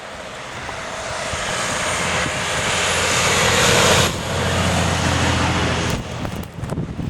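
An engine running, growing steadily louder over about four seconds, then easing back and cutting off about six seconds in.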